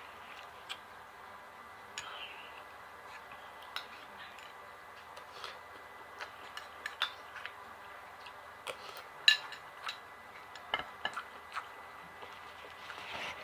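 Eating sounds: scattered small clicks and taps of utensils against a plate and of chewing, the loudest about nine seconds in.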